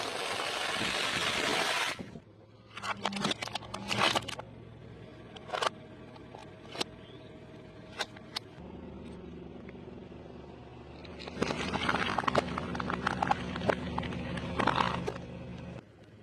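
Close-miked eating sounds: crunchy bites and chewing of fried food, with a dense crackling run of crunches near the end and scattered single crunches and clicks between.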